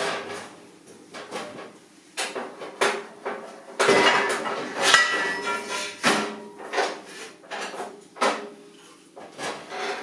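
Hollow square steel tube knocking and sliding against the bed and vise of a metal-cutting band saw as it is positioned and clamped: a series of irregular metal clanks and knocks, with a short ringing about halfway through.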